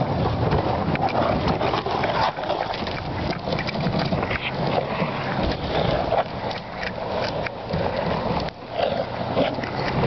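Boat hull dragged across the ground on a tow strap: a continuous scraping with irregular knocks and rattles.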